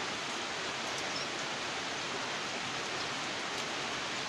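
A steady, even hiss with no separate events in it.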